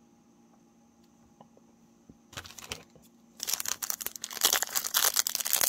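Topps Chrome trading-card pack wrapper crinkling as it is handled, starting about two seconds in, then turning loud, continuous crinkling and tearing from about three and a half seconds as the pack is ripped open.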